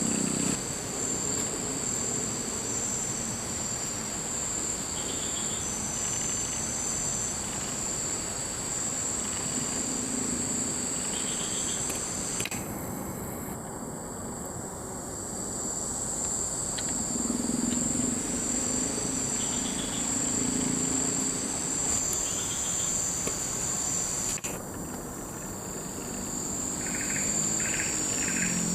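Steady high-pitched drone of an insect chorus, with short high calls repeating over it and a quick run of chirps, about three a second, near the end.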